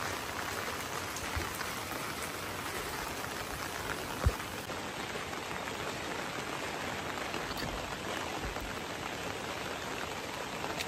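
Steady rain falling, an even hiss of drops, with a single short, sharp knock about four seconds in.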